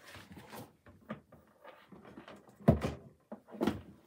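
Handling noises of someone moving about near the table: scattered clicks and rustles, with two louder thumps about two and a half and three and a half seconds in.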